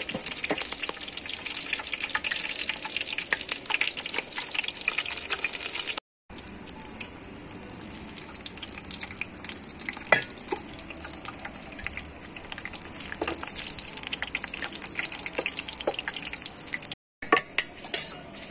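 Food sizzling and crackling as it fries in a pot, a dense hiss full of small pops. It is louder at first and quieter after a brief dropout about six seconds in. A second brief dropout comes near the end, followed by a few sharper pops.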